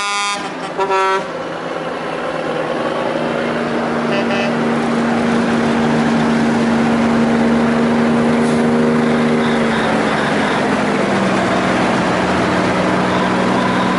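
Vintage trucks driving past in a line: diesel engines running with a steady hum whose pitch drops slightly about ten seconds in as one goes by. A few short horn toots sound in the first second.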